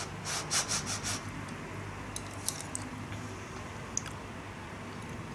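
Eating a hot spoonful of soup: several quick puffs of breath through the mouth to cool it, then a few faint clicks of a metal spoon against the bowl.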